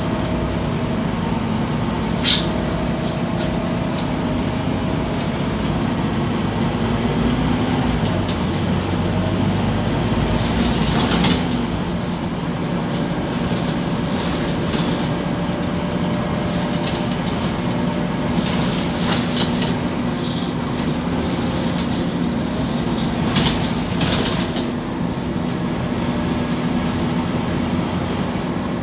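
Scania OmniCity city bus heard from inside the cabin while it drives: a steady low drone from the engine and drivetrain with road noise, and a faint whine that comes and goes. Short rattles and knocks from the body and fittings come a few times, the sharpest about a third of the way through and twice near the two-thirds mark.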